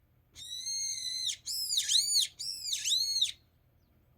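Brown-eared bulbul calling: one shrill held note, then about four quick notes that each rise and fall in pitch.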